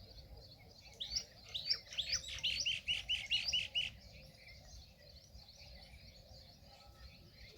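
A small songbird singing a quick run of about ten high, downward-sweeping chirps for about three seconds, followed by fainter scattered chirping.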